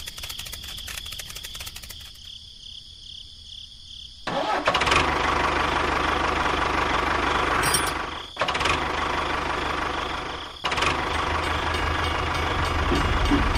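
Quiet crackling and clicking for the first four seconds, then a tractor engine starts and runs loudly, with two short dropouts.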